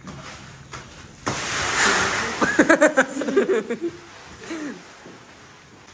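Wheat grain pouring from a sack into a large galvanized metal storage drum. It makes a rushing hiss that starts about a second in and lasts about two seconds.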